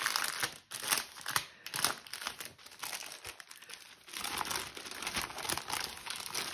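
Clear cellophane packaging crinkling in irregular bursts as it is pulled open, with stiff paper and card sheets rustling as they slide out of the bag; the rustle turns steadier from about four seconds in.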